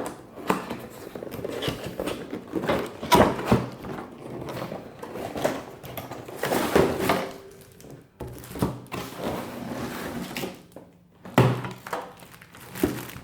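Cardboard product box being opened and handled by hand: irregular knocks and thunks with scraping and rustling of cardboard.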